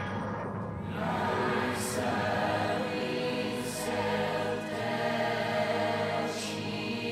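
Soundtrack music with a choir singing long held notes, with three brief airy high swells.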